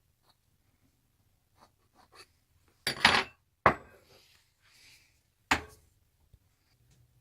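Carving tool working a block of soft wood by hand: a few faint short scrapes, then sharp knocks and scrapes about three seconds in, and another sharp knock about five and a half seconds in.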